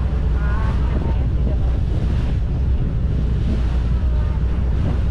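Boat under way at sea: a steady low engine drone mixed with wind buffeting the microphone and water rushing along the hull.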